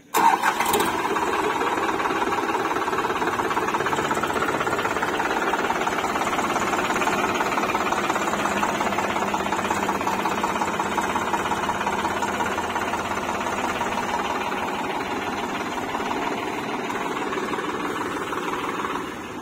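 Sonalika DI 47 tractor's diesel engine running steadily close by. It cuts in abruptly at the start and falls away near the end.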